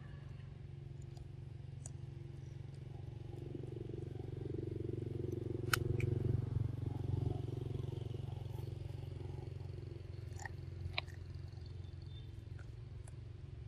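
A low engine drone that swells and fades around the middle, like a motor vehicle passing. A few sharp clicks come from a pig-tailed macaque biting and chewing corn on the cob.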